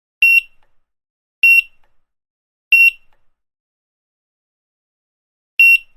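Supermarket checkout barcode scanner beeping four times: short, high single-tone beeps, the first three about a second and a quarter apart and the fourth after a longer pause.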